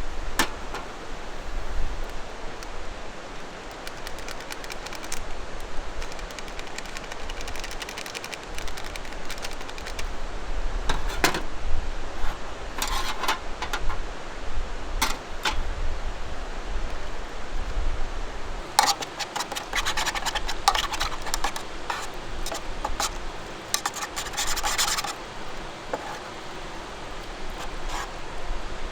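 Gear being handled: rubbing, scraping and clicking noises in bursts, busiest around the middle and again in the later part, over a steady rushing background of a mountain stream.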